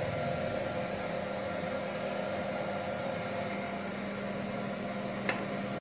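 Steady fan and electrical hum of a laser marking machine's cooling and power unit, with a single sharp click a little past five seconds in.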